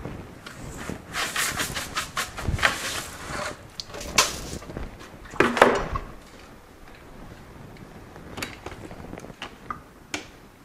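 Dry sunflower seeds rattling and shifting in a mesh bag as the bag is lifted and handled, then a louder thump about five and a half seconds in as the bag of seeds is set down in a stainless steel sink. A few light knocks follow.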